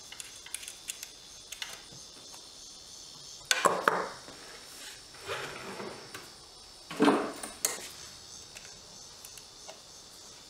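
Hand-tool work on a small nut: a ratchet and socket clicking and knocking, with a few louder metal-on-wood clatters about three and a half and seven seconds in. Crickets chirp steadily behind it.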